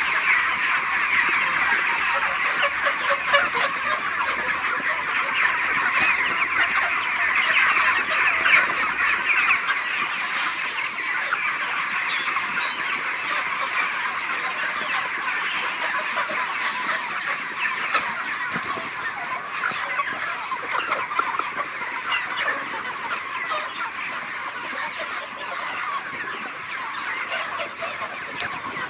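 A flock of desi chickens calling all at once in a dense, continuous chatter of clucks and cheeps, easing slightly in the second half.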